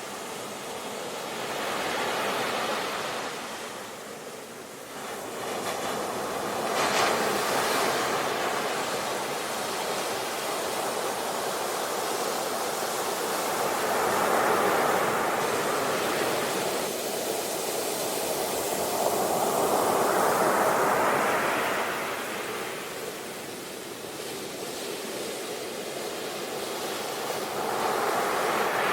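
Ocean waves breaking and washing up the shore in slow swells, each surge rising and falling over several seconds.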